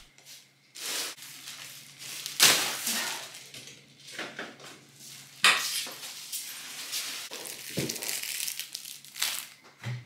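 Plastic shopping bags rustling and crinkling as groceries are unpacked and handled, in irregular bursts with a few sharper knocks of items being set down.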